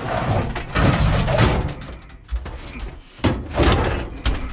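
Repeated bangs, knocks and scraping clatter of sheet-metal appliances being handled and loaded into a van.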